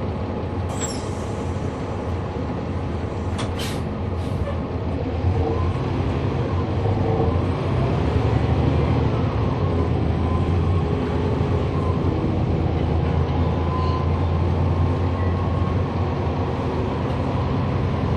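Cummins ISL9 diesel engine of a NABI 40-SFW transit bus, heard from on board over a steady low drone. A few brief sharp sounds come near the start. From about five seconds in the engine gets louder and its note rises as the bus pulls away.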